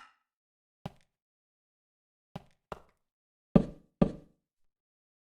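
Six short knocks at uneven intervals, the last two close together and the heaviest, with a deeper thud to them.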